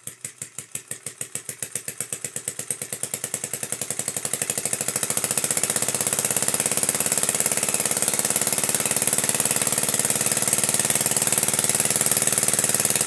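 3D-printed diaphragm compressed-air engine running with its propeller, beating at about five pulses a second at first, then quickening and getting louder over the first six seconds as the air supply pressure is turned up from 10 psi. It then holds a fast, steady beat.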